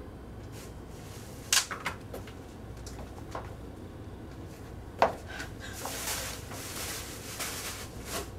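A few sharp knocks on wood, the loudest about five seconds in, then several seconds of crinkling packing paper being pulled out of a cardboard box.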